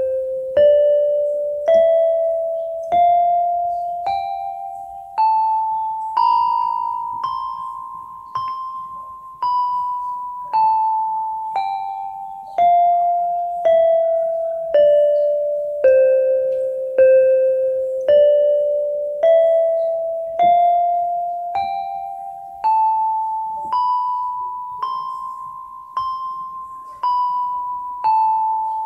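Yamaha PSR-32 electronic keyboard playing a one-octave scale slowly, one note at a time, about a note a second. It climbs the octave, comes back down and starts climbing again, each note struck and then fading.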